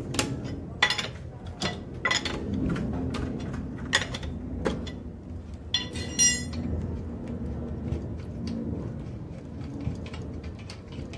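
Steel lug nuts and a wheel wrench clinking and clicking against an alloy wheel as the nuts are turned and handled, with sharp metallic ticks coming about every half second for the first six seconds, then fewer.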